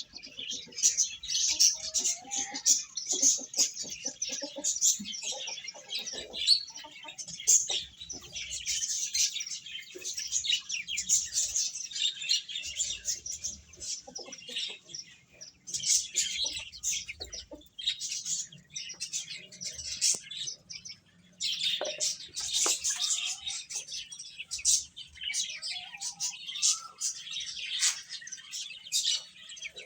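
Many chicks peeping continuously, their high chirps overlapping without a break, with a few lower rising calls now and then.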